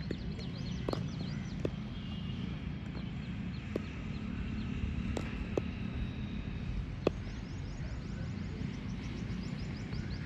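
Open-air ambience at a cricket ground: a steady low rumble with rapid high chirping throughout and a few sharp clicks, the loudest about seven seconds in.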